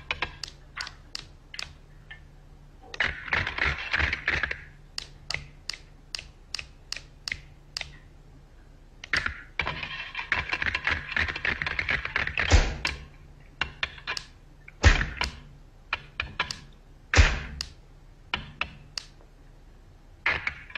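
Cartoon sound effects of a set of animated false teeth: rapid sharp clicks of the teeth snapping and clacking, two spells of crunchy chewing, and three heavier thuds, over a faint steady low hum.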